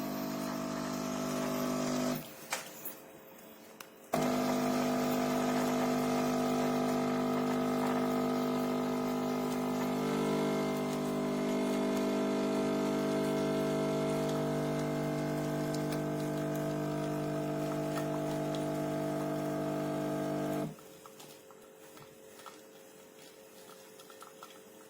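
Cecotec Power Instant-ccino espresso machine's water pump running with a steady hum. It runs briefly, stops for about two seconds, then starts again and runs for about sixteen seconds before cutting off near the end.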